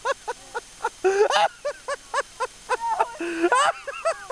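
People laughing hard, in rapid repeated 'ha-ha' bursts, with two short rushes of noise, about a second in and near the end.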